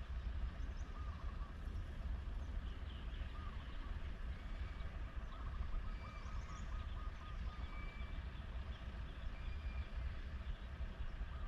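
Gusty wind rumbling on the microphone in open country, with faint calls of small birds: a wavering trill about five seconds in and several short high whistles.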